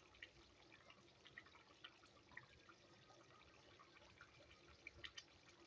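Faint bubbling and popping from a pot of pilau rice boiling in its cooking water.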